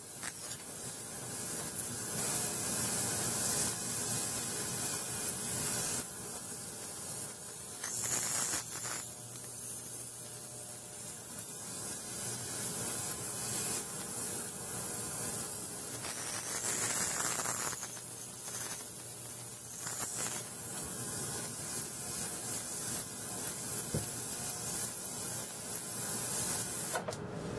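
Ultrasonic cleaner running in hot soapy water, a steady hiss and buzz of cavitation as a sharpening stone is cleaned in the bath. It gets louder three times, around eight seconds in, for about two seconds after sixteen seconds, and once more near twenty seconds.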